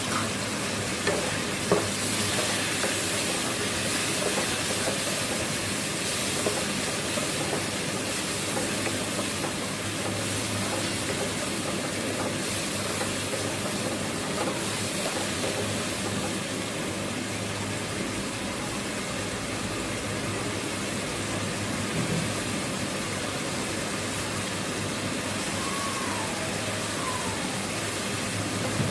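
Steady hiss of peas and potatoes in masala sizzling in a frying pan on a gas burner while a spatula stirs them, with a couple of sharp clicks of the spatula against the pan in the first two seconds.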